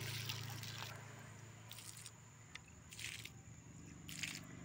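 Rustling and scraping of garden plants being pushed through and handled, in short bursts about a second apart, over a faint steady low hum.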